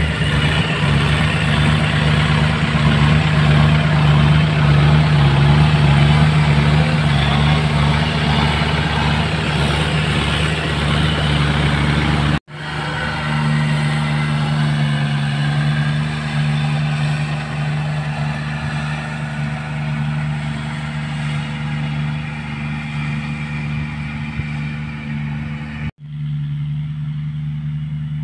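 Compact farm tractor's diesel engine running steadily under load while driving a rotary tiller: a low, even drone with a broad rushing noise over it, stronger in the first half. The sound drops out for an instant twice, about twelve seconds in and near the end.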